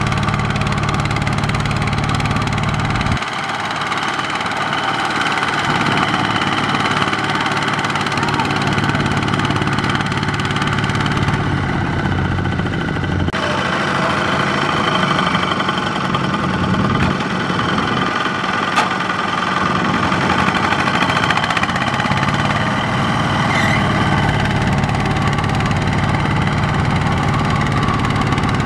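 Kubota walking tractor's single-cylinder diesel engine running steadily while the tractor is stuck in deep mud. Its deep low rumble falls away abruptly about three seconds in.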